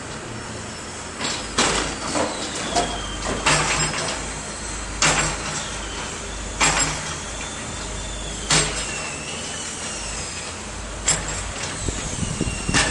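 Excavator demolishing a two-storey building: its diesel engine runs steadily while the machine's arm strikes and tears at the structure, giving about seven loud crashes of breaking and falling debris every one and a half to two and a half seconds, with high squeals gliding up and down between them.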